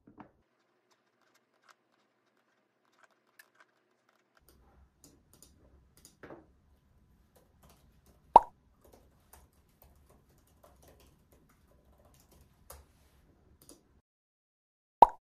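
Soft, scattered clicks of typing on a laptop keyboard and a computer mouse, broken twice by a loud, short pop: once a little past halfway and once at the very end.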